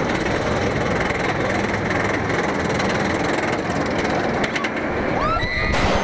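Steady rumbling noise of the Steel Vengeance roller coaster train running on its track. Near the end a sudden loud hit cuts in: the start of the edited-in 'boom' sound effect.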